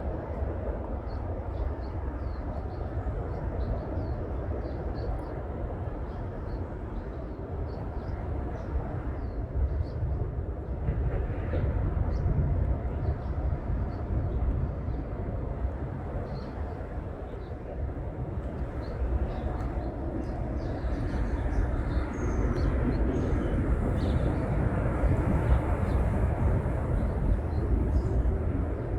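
Birds chirping in short, faint calls over a loud, steady low rumble of outdoor background noise.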